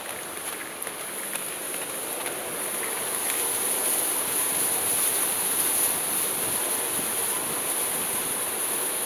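Rushing stream water pouring through a narrow rock gorge: a steady hiss that grows a little louder about three seconds in.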